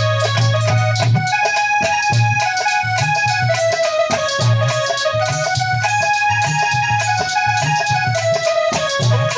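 Instrumental passage of bhajan music: an electronic keyboard plays a stepped melody over a rhythm of low drum strokes.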